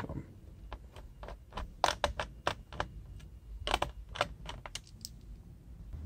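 Irregular light clicks and taps of a small screwdriver and loose metal screws against the plastic underside of a Lenovo ThinkPad X230 laptop as its bottom screws are taken out. The clicks bunch together about two seconds in and again about four seconds in.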